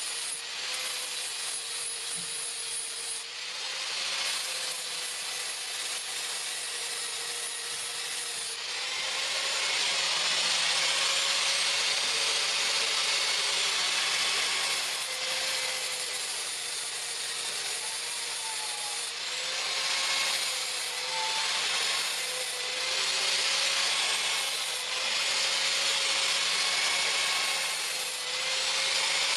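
An electric grinder running without pause on the steel of the pruner blade. Its motor tone wavers and the grinding hiss swells and eases several times as it is pressed into the work and let off.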